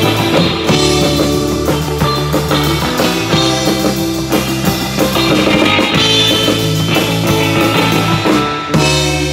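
Live surf-rock instrumental: electric guitar lead over a busy drum kit and a second guitar. About 8.7 seconds in the drumming drops out and a held low chord rings on.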